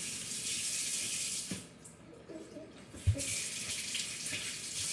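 Water tap running into a sink for hand washing. The flow noise drops away for about a second and a half midway, and a single knock about three seconds in comes just as it starts again.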